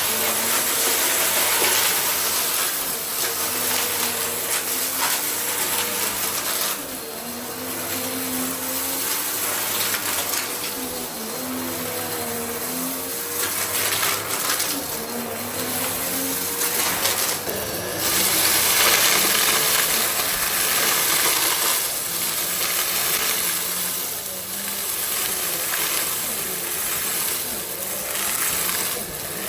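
Goodmans TurboMax vacuum cleaner running: a steady motor whine and rushing air, whose loudness rises and falls as the cleaner is worked, louder for a few seconds past the middle.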